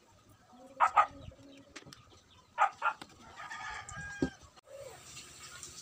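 Chickens clucking: short loud calls about a second in and again near three seconds, with fainter calls in between.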